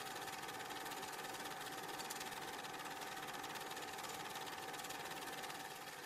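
Steady mechanical whir and hiss with a constant high-pitched hum, unchanging throughout; no crowd or game sound.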